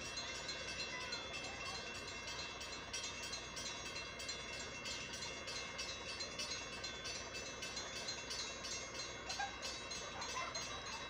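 Railroad grade-crossing bell ringing in a rapid, even series of strokes, the warning that the crossing is active and a train is approaching. Heard from inside a car stopped at the crossing.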